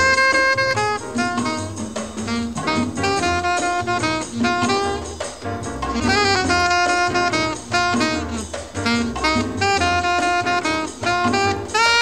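Background jazz music with a saxophone carrying the melody over a rhythm section.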